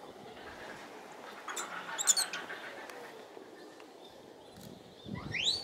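Short, high-pitched animal calls: a cluster of chirps about two seconds in and a quick rising squeal near the end.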